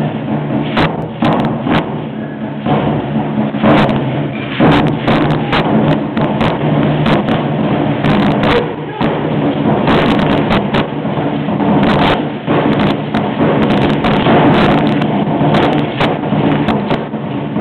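Ceremonial dance percussion: sharp, irregular beats and rattling that come every fraction of a second to a second, over a steady low hum.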